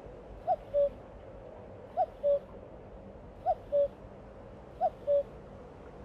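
Common cuckoo singing its two-note 'cuck-oo' song, a higher note dropping to a lower one, four times about a second and a half apart.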